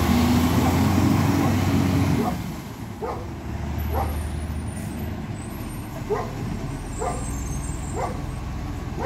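Side-loader garbage truck's diesel engine running loud for about the first two seconds, then dropping away as the truck moves off. A dog then barks repeatedly, about once a second.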